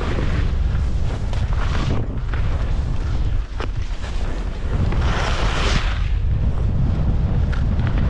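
Wind buffeting the microphone of a skier's camera during a downhill run, a steady low rumble, with skis hissing and scraping across packed snow in the turns; the longest, loudest scrape comes about five seconds in.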